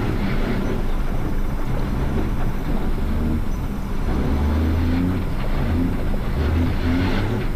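KAMAZ rally truck's diesel engine running hard, heard from inside the cab, its pitch stepping up and down with the throttle over a constant rattle and road noise from the rocky ground.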